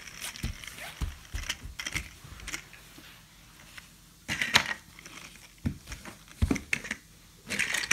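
Small plastic toy trucks being handled: scattered clicks and knocks, with a louder rustle about four seconds in.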